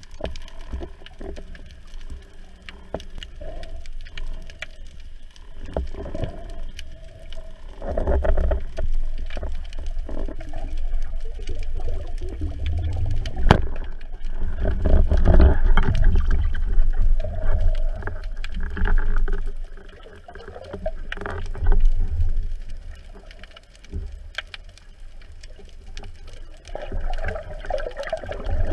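Muffled underwater noise through a speargun-mounted action camera's waterproof housing: low rumbling water rush that swells and fades as the diver swims over a rocky seabed, with occasional sharp clicks. Near the end the water noise grows brighter and busier as the camera breaks toward the surface.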